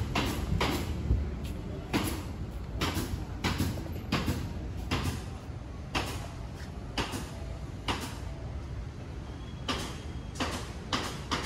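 Walking footsteps scuffing on pavement, roughly one to two steps a second, over a steady low rumble of city street noise.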